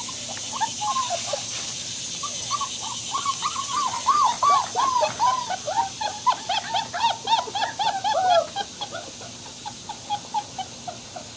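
Six-week-old German Shepherd–Labrador mix puppies whining: a run of short squeaky cries, each rising then falling in pitch, thickest from about a third of the way in to three quarters, then thinning to fainter, quicker cries near the end.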